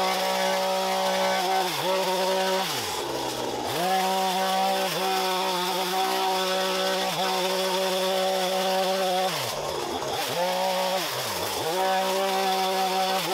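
Chainsaw cutting bamboo canes near the ground, its motor running at a steady high pitch. Several times the pitch drops sharply and swings back up as the throttle eases between cuts.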